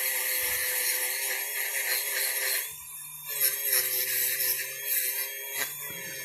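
Small power tool running steadily with a high hiss as it works over a die-cast metal toy body. It stops for about half a second roughly three seconds in, then starts again.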